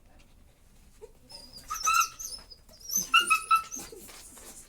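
German Shepherd puppy whining in two bursts of short, high-pitched cries, about a second apart.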